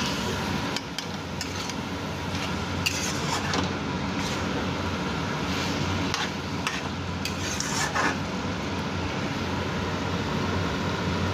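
Metal spatula stirring and scraping thick masala with potatoes and raw rice around a metal kadai, with a few sharper scrapes against the pan, over a steady hiss.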